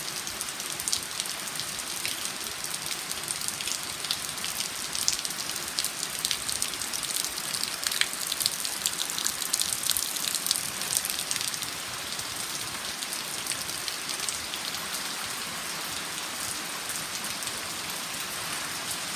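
Heavy rain falling on foliage and puddled ground: a steady hiss with many sharp drop splats, which are closest and thickest for a few seconds in the middle.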